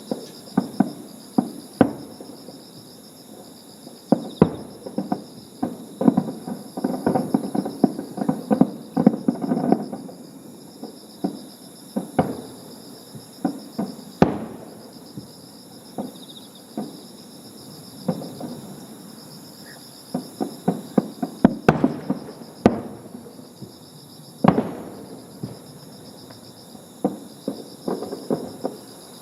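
Fireworks display: a long run of bangs from bursting shells, with dense crackling clusters about a quarter of the way in and again about three-quarters through. Insects trill steadily and high-pitched underneath.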